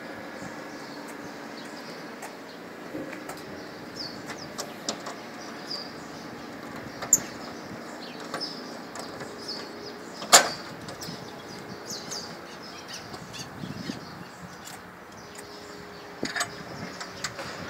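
Metal latch clicks and knocks of a ground-support unit's electrical cabinet door being unlatched and swung open. The loudest is a single sharp knock about ten seconds in, with a few more clicks near the end, over steady outdoor background noise and faint high chirps.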